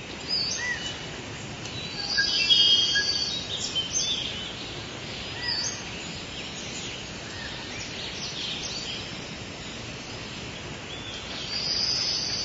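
Rainforest ambience: several birds calling with short chirps and whistles over a steady background hiss, busiest about two to three seconds in and again near the end.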